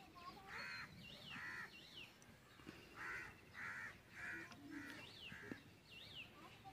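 Faint background bird calls: a series of about seven short repeated calls, with quick higher chirps in between.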